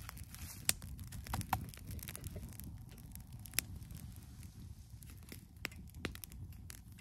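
Wood campfire crackling: scattered, irregular sharp snaps over a low rumble.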